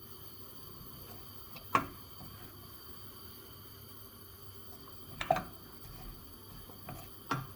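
A spoon knocking sharply against a cooking pot four times while onion and mushrooms are stirred in hot olive oil, over a faint, steady hiss.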